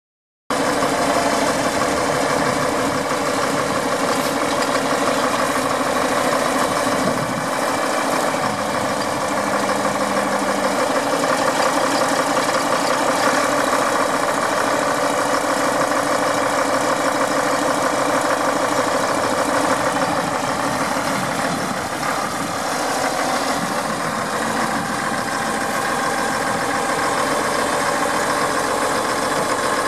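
Caterpillar D6D crawler dozer's 3306 six-cylinder diesel engine running steadily as the machine moves slowly over the ground.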